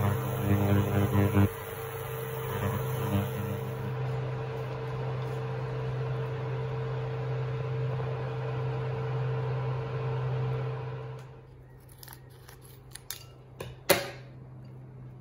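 Steady electric kitchen hum with a low tone while noodles cook in a pan of water on a glass cooktop. The hum stops about eleven seconds in. A few short clicks and rustles of a plastic sauce sachet being handled follow, the loudest a sharp click near the end.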